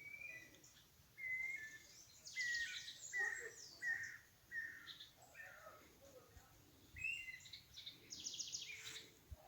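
Songbirds singing: a string of short whistled notes, with a quick high rattling trill about two and a half seconds in and again near the end.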